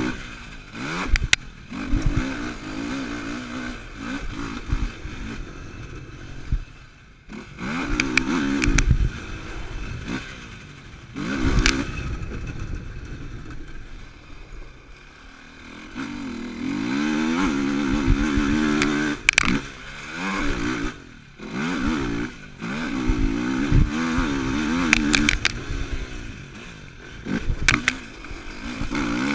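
Yamaha YFZ450R quad's single-cylinder four-stroke engine revving hard and easing off again and again as it is ridden round a dirt track. Sharp knocks and clatter break in several times.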